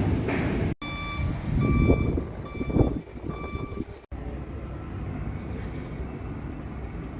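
Vehicle warning beeper sounding four short, evenly spaced electronic beeps over the low rumble of a heavy vehicle. The beeps stop at an abrupt cut, and steady low street noise follows.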